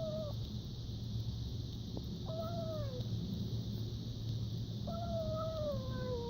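Stray kitten whining meows while eating, a hungry kitten crying over its food: three drawn-out cries, each sliding down in pitch at the end, the last about a second and a half long.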